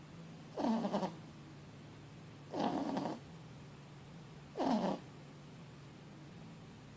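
A four-month-old Boston terrier / French bulldog puppy snoring loudly in its sleep: three snores, each about half a second long and about two seconds apart.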